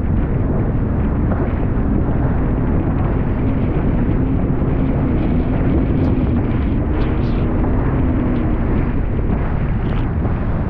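Wind buffeting the microphone over a boat's engine running at speed, a steady loud rumble. A faint low drawn-out tone sits on top of it through the middle.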